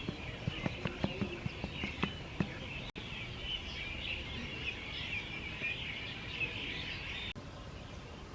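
Birds chirping continuously in a dense, high-pitched chorus, with a few light clicks in the first couple of seconds. The chirping breaks off abruptly near the end.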